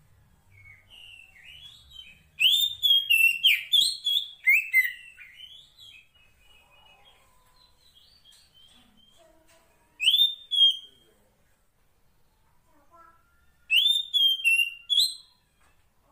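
Female Oriental magpie-robin (kacer poci) calling to a male: three bursts of loud, sharp whistled phrases, the longest beginning about two seconds in, with quieter scattered notes between the bursts.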